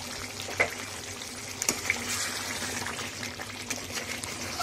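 Chicken curry masala sizzling and bubbling in a kadai over a high flame as it is fried down (bhuna), with a few light clicks of the spatula against the pan.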